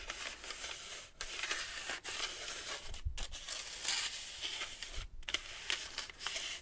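Paper backing sheet rubbed firmly back and forth over a stick-on water-soluble embroidery stabilizer on linen to press it down: a continuous papery swishing and scraping with a few brief breaks between strokes.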